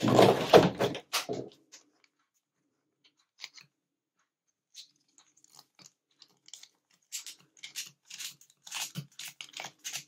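The number wheels of a five-wheel combination bike lock being turned by hand to scramble the code. There is a burst of handling rustle at the start, a lull with a few faint ticks, then a quick run of clicking and scraping over the last few seconds as the wheels are spun.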